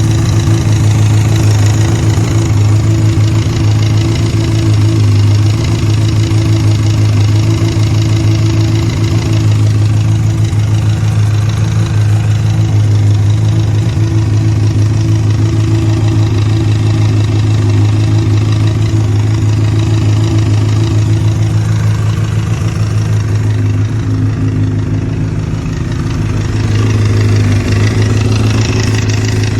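Honda CBR600RR (PC40) inline-four motorcycle engine idling steadily, making a noise the owner finds strange and cannot place.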